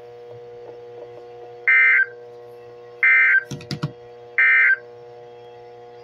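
EAS end-of-message data bursts from a NOAA Weather Radio test: three short, high, buzzy digital squawks about 1.3 seconds apart, each about a third of a second long. They play over a steady receiver hum, with a brief crackle just after the second burst.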